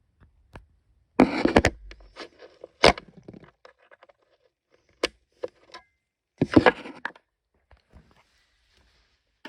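Scattered handling noise: a few sharp clicks and knocks, with two louder rustling scrapes about a second in and again about six and a half seconds in.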